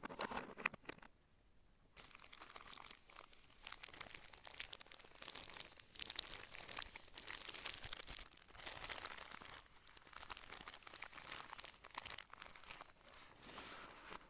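Keyboard packaging being crinkled and handled: a few sharp clicks in the first two seconds, then a dense crackly rustle that swells and fades in waves for most of the stretch.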